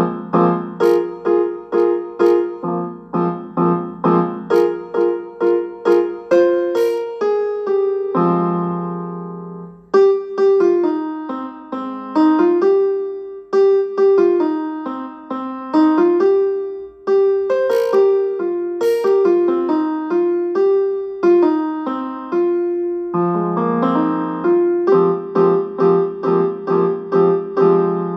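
Piano ringtone tune: quick repeated struck chords at about three a second, a held chord about eight seconds in, then a melody stepping up and down, and the repeated chords return near the end.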